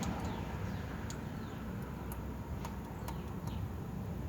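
Outdoor background: a steady low rumble with a few faint, short bird chirps and scattered light clicks.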